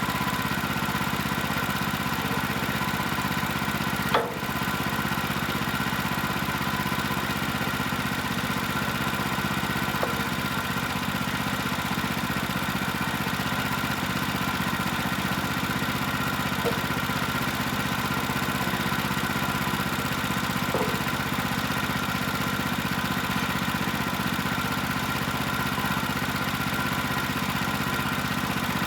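Portable bandsaw sawmill's gas engine running steadily, with one sharp knock about four seconds in and a few lighter clicks later.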